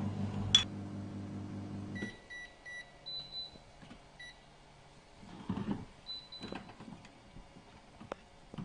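Touch control panel of a 3D sublimation vacuum heat press beeping as its buttons are pressed: a quick run of short high beeps about two seconds in, then a few more single beeps. Before that a low, steady machine hum stops abruptly, and there is one sharp click under a second in.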